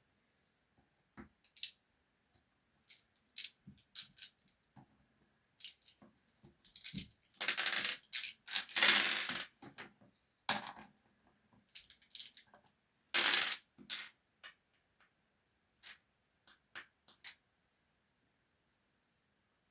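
Small hard objects clicking and clattering on and off, with a denser, louder run of rattling about halfway through and another loud clatter a few seconds later.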